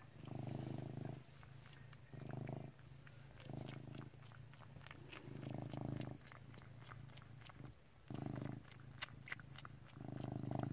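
Cat purring in rhythmic stretches about every two seconds while suckling on his blanket. Faint wet clicking sucks can be heard from about halfway through.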